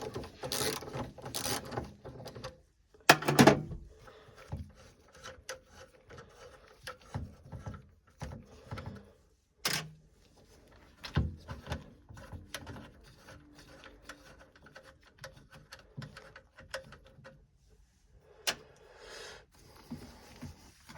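Scattered clicks, knocks and metallic rattles of hand tools and boiler parts being handled while a gas combi boiler is stripped down for a service, with a run of quick clicks at the start and louder knocks a little after three seconds in, near the middle and near the end.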